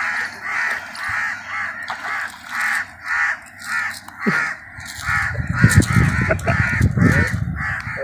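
A bird calling over and over in a steady rhythm, about two calls a second. From about five seconds in, a low rumbling noise joins it.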